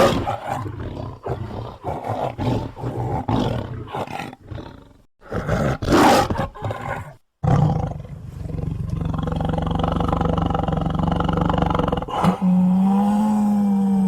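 Animal roar sound effect billed as a jaguar-bear. A run of short rasping grunts is followed by one loud roar about six seconds in. After a brief gap, a long steady growl starts and rises to a louder, higher pitch about twelve seconds in.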